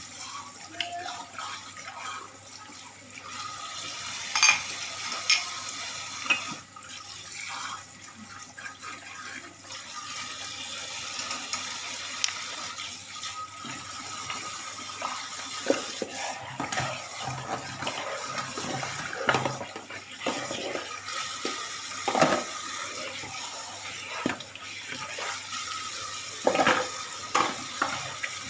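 Kitchen tap running into a stainless steel sink while dishes are scrubbed and rinsed under it, with scattered clinks and knocks of dishes against each other and the sink.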